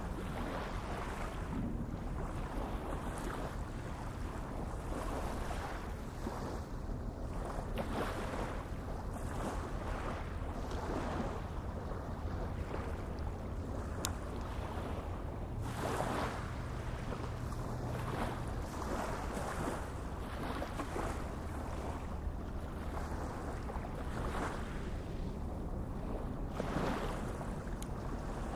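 Wind and small waves lapping along the estuary shore, swelling softly every second or two, over a low steady hum.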